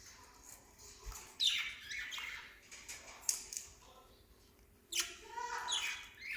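Small pet parrots calling. There are sharp, harsh squawks that fall in pitch, one about a second and a half in and more from about five seconds in, with softer chirps between.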